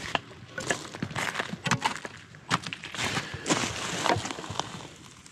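Irregular scuffs, clicks and knocks of footsteps and tools being handled on the ground, some strikes sharper than others, thinning out near the end.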